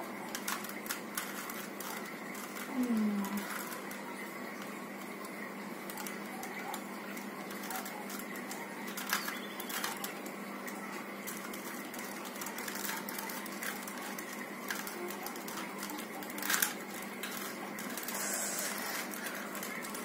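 3x3 Rubik's cube turned by hand, its plastic layers clicking and clattering in quick, irregular turns over a steady background hum.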